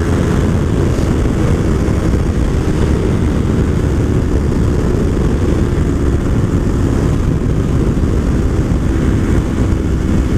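Steady wind rush over the microphone mixed with the Yamaha YZF-R3's 321 cc parallel-twin engine running at highway speed, the bike slowing from about 160 to 130 km/h.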